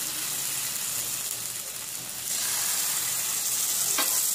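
Thin rava dosa batter sizzling on a hot flat tawa over a high flame: a steady hiss that grows louder about two seconds in, with a light click near the end.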